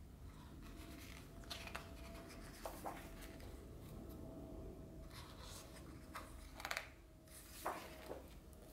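Pages of a large hardcover art book being turned and smoothed flat by hand: several soft paper swishes and rustles, the loudest page sweeps coming late, plus a couple of light ticks.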